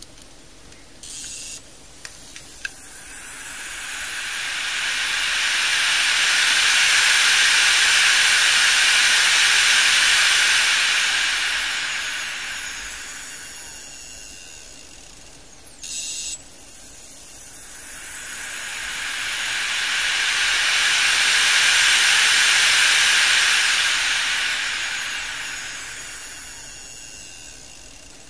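Western Digital WD5000KS hard drive with its lid off, its four bare platters spinning up and winding down twice: each time a whooshing rush of air rises for a few seconds, holds, then fades. The failed drive keeps spinning up and stopping again without coming ready. A short click comes just before each spin-up.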